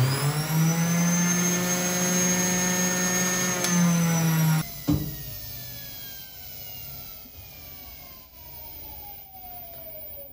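Philips centrifugal juicer's motor switched on, spinning up to a steady high whine for about four and a half seconds, then switched off with a click and winding down, its pitch falling slowly as it coasts to a stop. It is running off an inverter and lithium battery as a load test.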